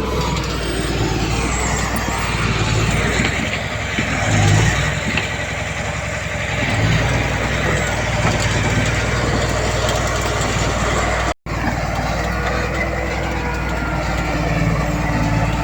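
Heavy diesel earthmoving machinery, a bulldozer and dump trucks, running steadily under load. The sound drops out for an instant about eleven seconds in.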